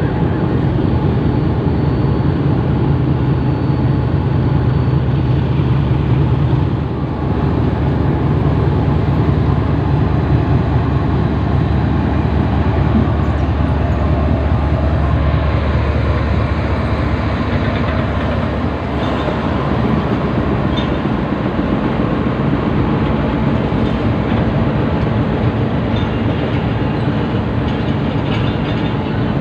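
Pakistan Railways GEU40 diesel-electric locomotive pulling out slowly at departure. Its engine hums and rumbles loudly as it passes, for roughly the first half. After that the sound gives way to the steady rolling noise of the passenger coaches, with scattered wheel clicks.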